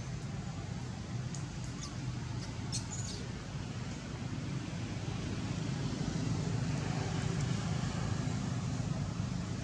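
Steady low rumble of distant road traffic, with a few brief high-pitched chirps about one and a half to three seconds in.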